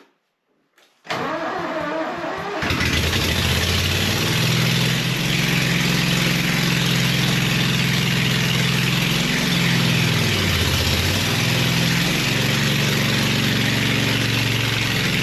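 Skid steer engine cranking for a second or two about a second in, catching and then running steadily, with a brief drop in engine speed near the middle.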